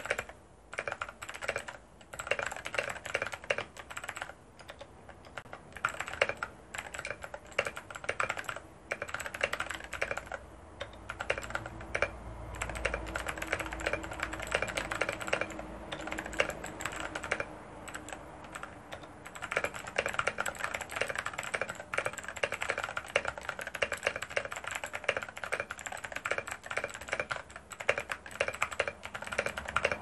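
Fast typing on a CIY Tester68 mechanical keyboard with clicky Outemu Blue switches, XDA-profile PBT keycaps and foam under the plate and PCB: a dense, rapid stream of crisp key clicks at about 100 words a minute, with a few short pauses, stopping near the end.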